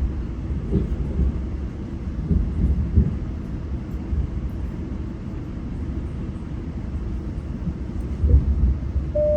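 Steady low rumble of a GO commuter train running on the rails, with a few short knocks from the track and wheels. Just before the end a clear chime tone begins, the chime that precedes the station announcement.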